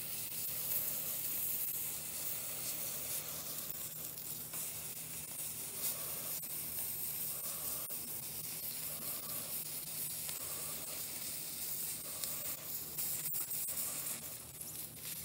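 CryoIQ PRO cryo pen with a D3 tip hissing steadily as it jets freezing gas onto a skin mass during a freeze cycle. There are a couple of faint ticks.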